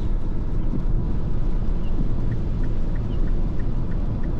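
Steady engine and road rumble heard inside the cabin of a moving MINI R55 Clubman, with a regular light ticking of about three ticks a second starting about halfway through.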